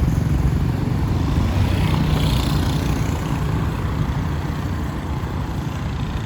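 City road traffic: a steady rumble of passing vehicles, with one passing close and louder about two to three seconds in.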